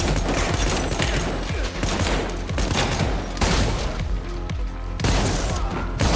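Film soundtrack gunfire: a dense run of shotgun blasts and other shots in quick succession, over steady music.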